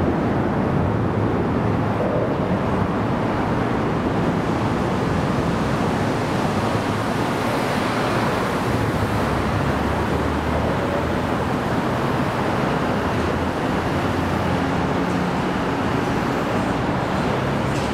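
Steady street traffic noise, a continuous wash of passing vehicles, with a car passing close by about eight seconds in.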